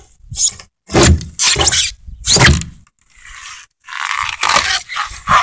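Heavy iron crowbar rammed and scraped into the foam under a fiberglass boat's deck, tearing chunks of it out: four short, rough scraping strokes, then a longer scrape near the end.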